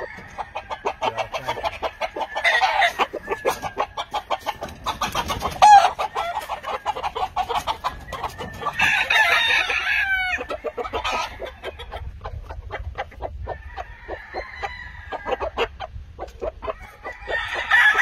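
Gamefowl roosters crowing several times, about every few seconds, over a fast, continuous run of short clucking calls.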